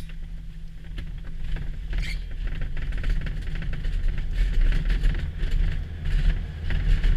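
Glider rolling fast over a bumpy grass airfield on its take-off run: wheel rumble and rattling knocks from the airframe and canopy grow louder as it picks up speed, over a steady low drone.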